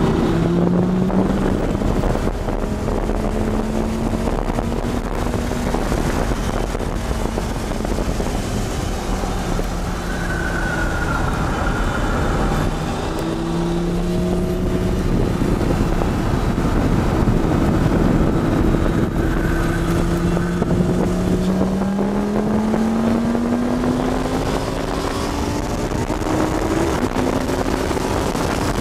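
Lamborghini Gallardo Superleggera's V10 engine heard from inside the cabin under hard acceleration on track: the engine note climbs steadily through each gear and drops back abruptly at the gear changes, several times over.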